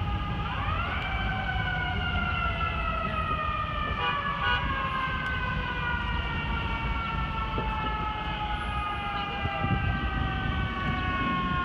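Fire engine's mechanical siren winding up sharply about half a second in, then slowly winding down, over steady city traffic rumble.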